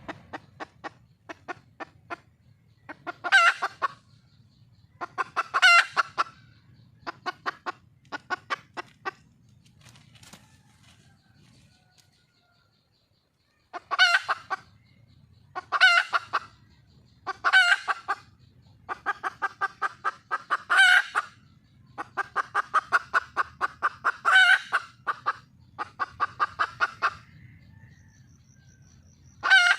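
Wild junglefowl hen clucking in rapid runs of short, sharp notes, in clusters every second or two with louder peaks: a hen calling for a mate. The calling breaks off for about a second and a half near the middle.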